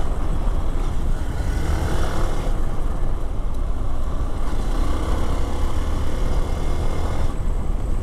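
Hero Xpulse 200 4V motorcycle being ridden on a dirt track, heard from the rider's position. The single-cylinder engine runs under load and its note rises and falls, over a heavy steady rumble of wind and tyres.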